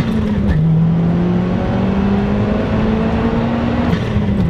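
Big-turbo Chevy Sonic's 1.4-litre turbocharged four-cylinder pulling hard under full throttle, heard from inside the cabin: the engine note climbs steadily, drops about half a second in and again near the end as the six-speed manual is shifted up, then climbs again.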